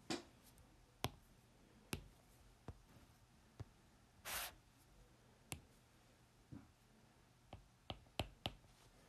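Faint, scattered clicks and taps of a pen and paper being handled on a desk, with a short paper rustle about four seconds in. Near the end, a quick run of pen taps on paper as a number is written.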